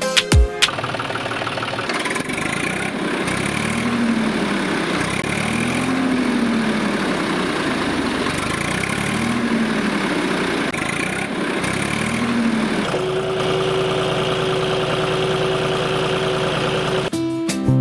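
Small electric motor of a homemade model tractor running. Its whine rises and falls several times as it speeds up and slows, then holds a steady, higher pitch for the last few seconds.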